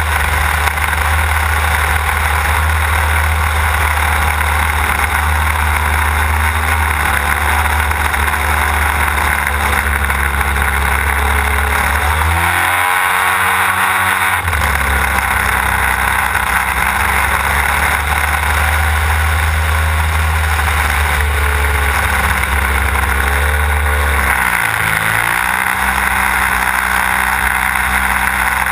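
Desert Aircraft DA-150 twin-cylinder two-stroke gasoline engine of a large model aerobatic plane running at high power, heard from a camera on the airframe with wind rushing past. Its note sags and then climbs back twice: for about two seconds a little before halfway, and briefly again near the end.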